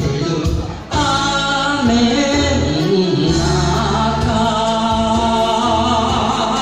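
A singer sings a Japanese-language song into a microphone over backing music with a steady bass line.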